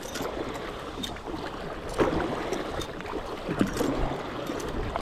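River whitewater rushing steadily around a kayak, with a few short splashes of paddle strokes.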